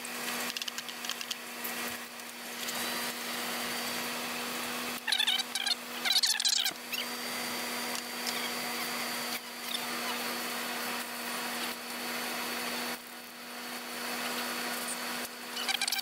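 A steady hum runs throughout. Over it come small clicks and clinks of hand work on a lawnmower engine's carburetor, and a few short, wavering high sounds about five to seven seconds in.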